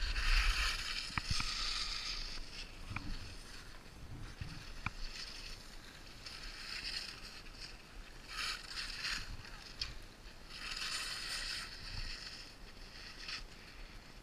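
Skis sliding and scraping over packed snow in repeated surges of hiss as the skier turns, with a few faint clicks.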